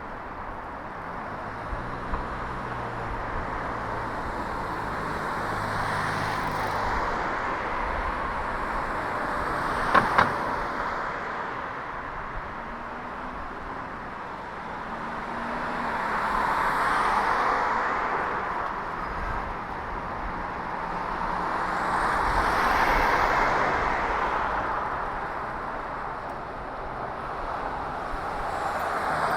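Road traffic on a city street: cars passing one after another, each swelling and fading, heard from a bicycle. A low engine hum runs early on, and a sharp double click comes about a third of the way in.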